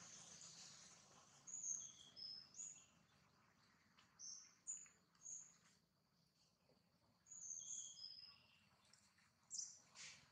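A bird calling: short, high-pitched chirps in four brief clusters spread over several seconds, over faint background hiss.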